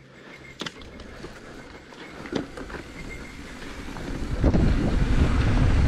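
Mountain bike setting off down a dirt trail: a couple of sharp clicks early on, then the rumble of knobby tyres on dirt and wind buffeting the helmet camera's microphone grow loud and steady from about four and a half seconds in.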